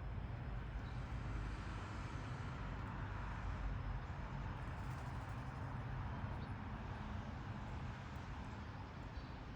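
Steady outdoor background noise, a low rumble with a hiss over it and no distinct event standing out.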